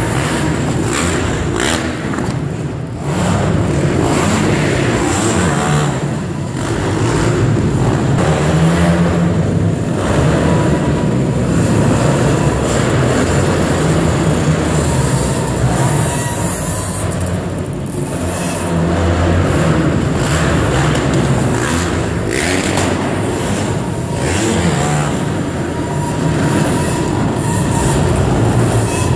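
Several sport quad bikes' engines revving up and falling back over and over as the quads ride the dirt track's jumps, with no break in the engine noise.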